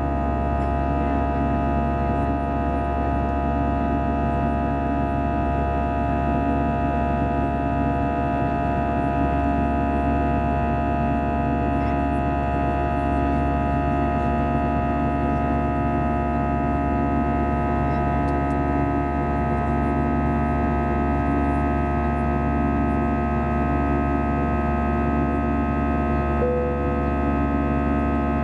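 Airbus A320's CFM56 turbofan engines running steadily, heard inside the cabin as a constant hum with several held tones.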